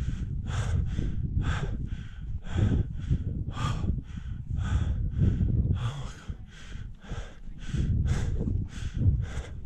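A climber's rapid, heavy breathing close to the microphone, about two to three hard breaths a second: breathless from climbing near 5,900 m altitude. A low rumble runs beneath the breaths.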